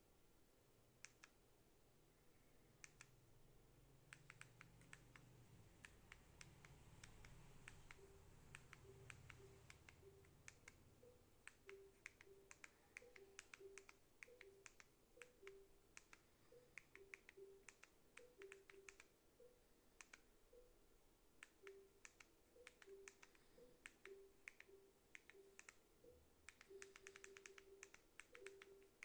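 Faint, rapid clicking of TV remote buttons pressed to move across the on-screen keyboard, many of the presses answered by a short low beep from the TV. A faint low rumble swells and fades during the first third.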